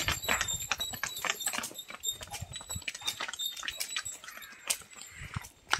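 A bull's hooves and a man's footsteps on a dirt path as he leads it at a walk on a rope: irregular footfalls, thickest in the first two seconds, then sparser.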